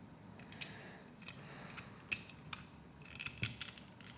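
Plastic Lego Technic pieces clicking as they are handled and fitted together: scattered light clicks, with a quick cluster of them about three seconds in.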